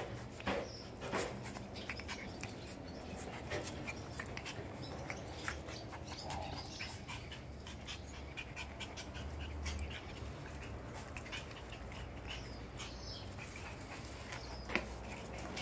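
Shiba Inu puppy mouthing and nibbling a person's fingers, with quiet panting and many small sharp clicks.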